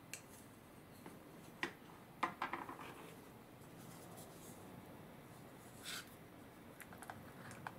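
Light clicks and knocks of a wooden bowl and utensils being handled. The sharpest knock comes a couple of seconds in and is followed by a short rattle. There is a brief rustle about six seconds in and a few light ticks near the end.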